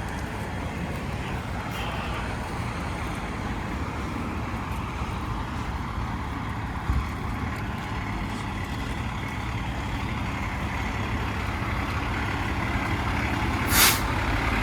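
Fire truck's diesel engine idling steadily, with a short sharp burst of hiss near the end.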